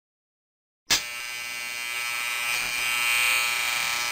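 Electric shaver switched on abruptly about a second in, then running with a steady high buzz.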